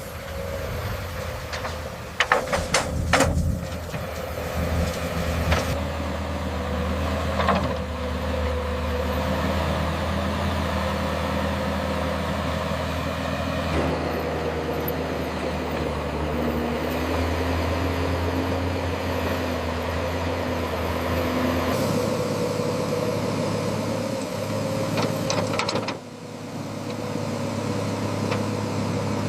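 Diesel engines of heavy construction machinery running steadily, with a few sharp metallic knocks in the first few seconds; the engine note shifts abruptly several times.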